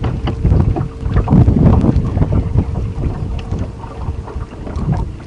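Wind buffeting the microphone in gusts that rise and fall, over a steady faint hum from the boat.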